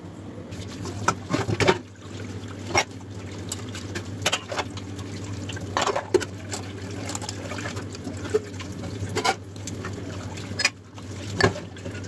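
Tap water running into a kitchen sink while steel utensils are rinsed, with repeated clanks and knocks of metal bowls and pans against each other and the sink.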